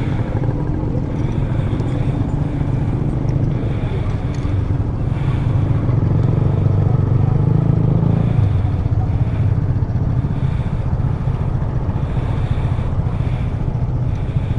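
Motorcycle engine running under way with road and wind noise. The engine note swells past the middle, then drops off suddenly, as when the throttle is closed.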